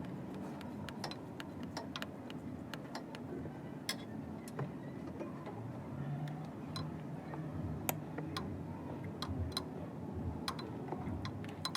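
Sharp metallic clicks and ticks at irregular intervals, from hand tools working on the 12 mm mounting bolts of an A/C compressor, over a low steady hum.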